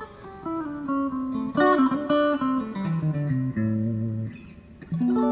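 PRS Silver Sky electric guitar, noodling: a melodic line of single picked notes that steps down to a low held note about four seconds in, then picks up again near the end.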